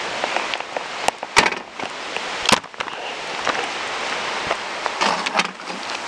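Camera handling noise beside a bicycle: several sharp clicks and knocks over a steady rustling hiss, with a cluster of knocks about five seconds in.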